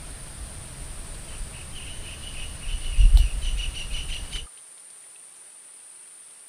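Steady high-pitched drone of crickets, with a rapid chirping call for a couple of seconds and a loud low thump about three seconds in. After about four and a half seconds only the thinner cricket drone remains.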